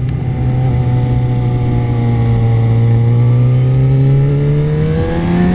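Motorcycle inline-four engine of a 2008 Suzuki GSX-R600 running steadily under way, heard from the rider's seat. Its pitch sags a little through the middle, then climbs as the bike accelerates near the end.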